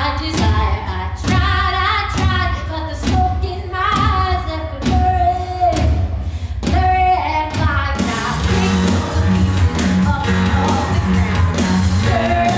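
A female rock vocal sung over a steady drum beat, with the full band and electric guitar coming in about eight seconds in.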